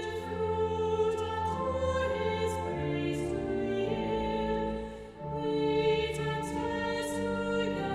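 Choir singing slowly in long held notes, with a brief drop in loudness about five seconds in.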